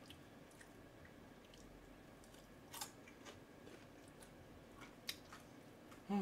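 Quiet eating sounds: faint clicks of wooden chopsticks and chewing, with two sharper clicks about three and five seconds in.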